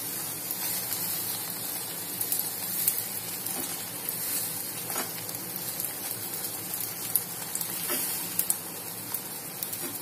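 Thin besan (gram-flour) batter sizzling in a hot, lightly oiled nonstick frying pan as the back of a ladle spreads it out, with a few light ladle scrapes and taps against the pan.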